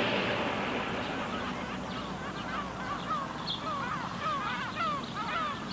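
A flock of birds calling: many short, falling calls overlapping one another, thickening from about two seconds in, while a louder wash of sound fades out at the start.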